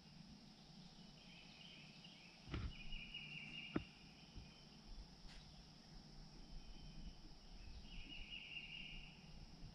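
Quiet river-swamp ambience: faint trilling calls from small wildlife repeat several times over a steady high hiss, with two sharp knocks about two and a half and four seconds in.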